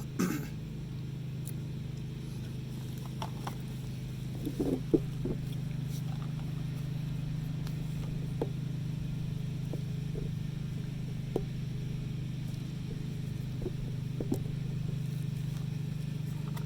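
A steady low mechanical hum runs throughout. Light clicks and taps from small parts being handled come a handful of times, the sharpest about five seconds in.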